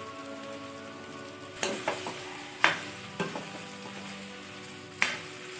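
A steel spoon stirring soaked sago pearls, potato and tomato frying in a metal kadai, with a light sizzle and about five sharp clinks of the spoon against the pan, the loudest about two and a half seconds in.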